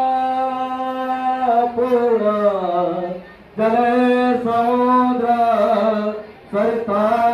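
A single voice singing long, slow held notes in a chant-like style, with no accompaniment heard. The pitch slides down once, and the line breaks twice for a breath.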